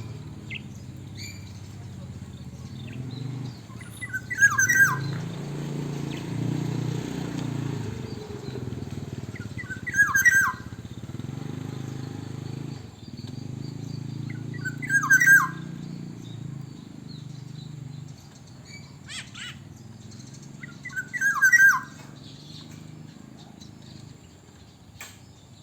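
Black-naped oriole singing a short, fluting whistled phrase four times, about five to six seconds apart, over a steady low background rumble.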